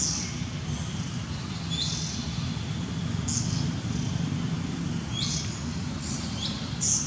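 A series of short, high-pitched squeaky animal calls, about six, several of them dipping in pitch, over a steady low rumble.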